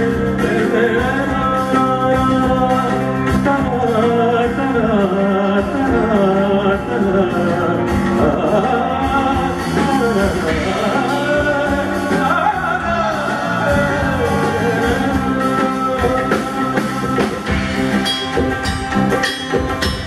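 Live fusion band music: a man singing over electric bass guitar and percussion, with sharper clay-pot ghatam strokes coming through near the end.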